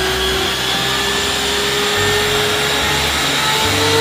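Water cannon on a tanker truck spraying a long jet of water: a loud, steady rushing hiss, with the truck's pump running underneath and a faint whine that rises slowly.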